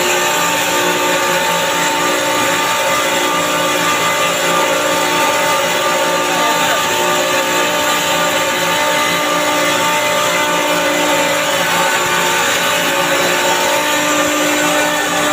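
Chiller compressor running loud and steady, a broad mechanical noise with several steady tones humming through it; it is the compressor noise being checked as abnormal.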